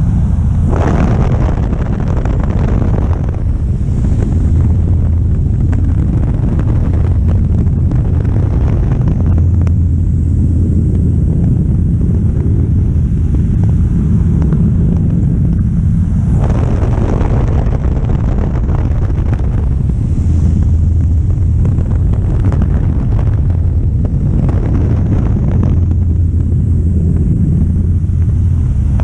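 Great Lakes 2T-1A-2 biplane's four-cylinder Lycoming engine and propeller running with a steady drone, heard from the open cockpit. Wind rushes over the microphone throughout and swells several times, strongest about a second in and again just past halfway.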